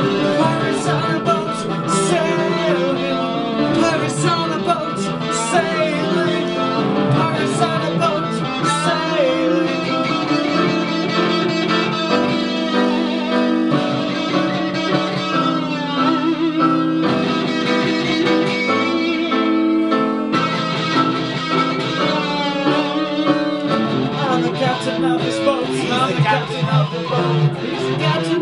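Electric guitar and keyboard played together live, an instrumental passage of a song with no vocals.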